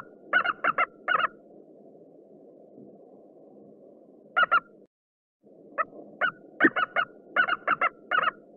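Eagle calling in bursts of short, rapid, high piping notes: a run of about five at the start, a quick pair near the middle, and a longer run of about a dozen near the end. A steady low hiss lies under the calls and drops out for a moment near the middle.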